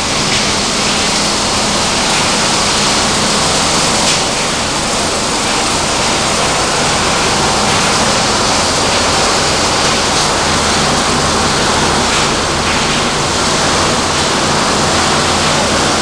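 Refrigerator shredding and crushing line running: loud, steady machinery noise with a low hum underneath.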